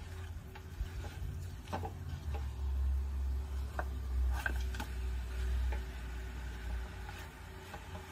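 Wooden spoon stirring sautéing meat in a stainless steel stockpot, with a few irregular knocks and scrapes of the spoon against the pot, over a low rumble.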